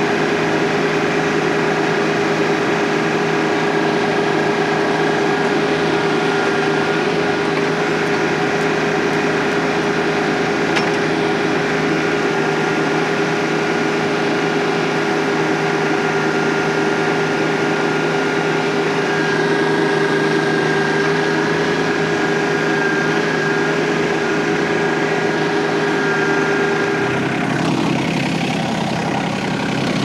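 TYM T25 compact tractor's diesel engine running steadily at full throttle, driving a loader-mounted hydraulic post-hole auger as it bores into the ground without bogging. About 27 seconds in, the engine note drops.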